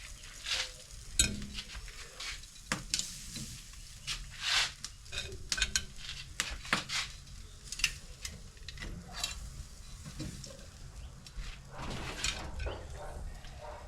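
Buttered shrimp sizzling on a charcoal grill, with metal utensils clinking and scraping many times against the grate as the shrimp are taken off.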